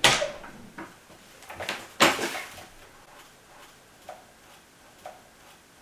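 A wooden door being handled: a loud latch click with a rush as it opens, a second louder knock about two seconds in, then a few faint clicks.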